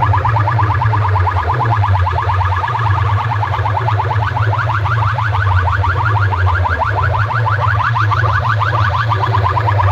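DJ sound-system speaker boxes playing at high volume: a deep, steady bass under a rapidly repeating rising tone, several sweeps a second.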